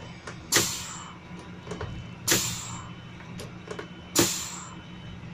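Volvo FM 370 pneumatic dump-body control lever being moved up and down, its exhaust port hissing sharply three times, each hiss fading over about half a second, with light clicks of the lever between. The exhaust port should vent only air; the mechanic blames oil coming out with it on a damaged O-ring or seal on the spool of the hydraulic control valve.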